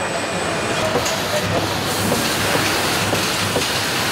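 Steady machinery noise of a car assembly line: a continuous low hum and hiss with faint scattered clicks and clatter.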